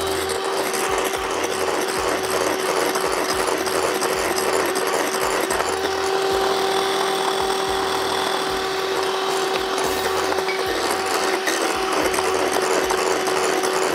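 Electric hand mixer running steadily at one speed, its beaters whipping egg whites in a glass bowl toward stiff peaks, a constant motor hum over a whirring, swishing noise.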